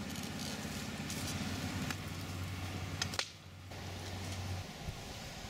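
A steady low engine hum with a few short sharp clicks about two and three seconds in. The hum stops near the end.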